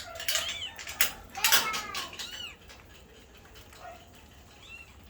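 Week-old kittens mewing: several thin, high, short cries in the first two and a half seconds and a fainter one near the end, mixed with sharp clicks and knocks.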